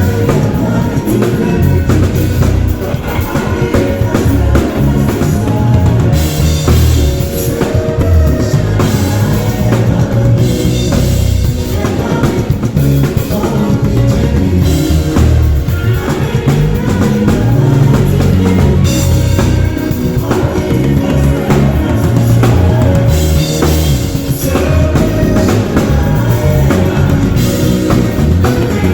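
Live band playing through a PA, with a drum kit and heavy bass prominent: loud music that runs without a break.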